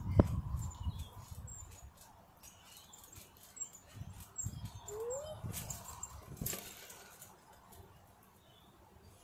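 Soft, low thuds of a trampoline mat as a child bounces and lands, a cluster of them between about four and seven seconds in, with a couple of sharp clicks. Faint high bird chirps are heard throughout.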